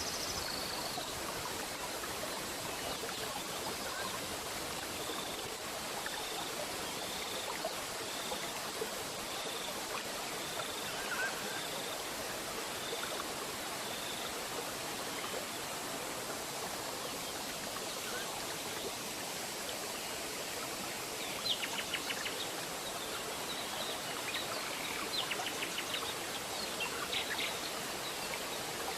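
Steady rush of a waterfall, with birds calling over it: a run of short, evenly repeated notes for several seconds, then later a few bursts of rapid sharp notes.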